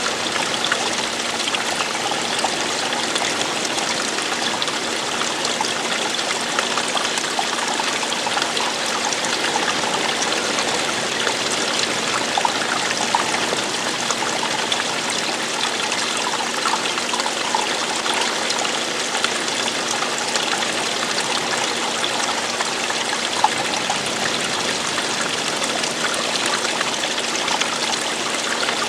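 Running water falling and splashing over rocks: a steady, unbroken rush with small splashes scattered through it.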